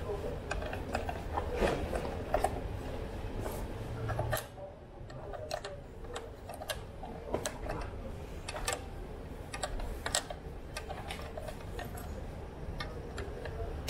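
Scattered light clicks and taps of metal parts being handled as brake pads are fitted into a hydraulic disc-brake caliper. A low hum underneath stops about four and a half seconds in.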